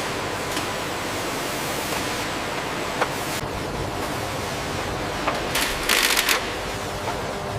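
Steady hiss of factory machinery, with a sharp click about three seconds in and a brief rattling clatter of clicks around six seconds in.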